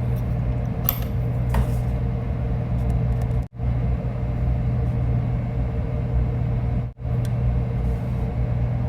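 Steady low mechanical hum with a faint pitched drone over it, cutting out for an instant twice. A couple of faint clicks come about a second in.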